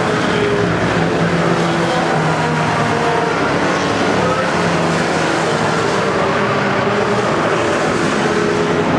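Several race trucks' engines running together at racing speed on a short oval, loud and steady, with engine pitches rising and falling as trucks pass close by.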